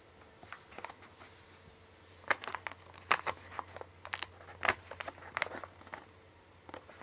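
A sheet of origami paper being handled and creased as its wing edges are folded upright: scattered short crinkles and taps of paper.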